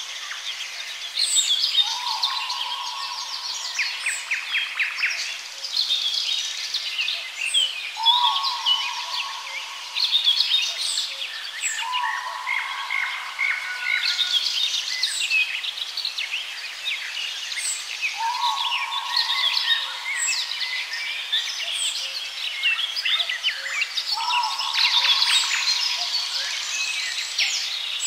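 A chorus of songbirds singing, with many overlapping chirps and trills, and now and then a lower, long level whistle lasting about a second.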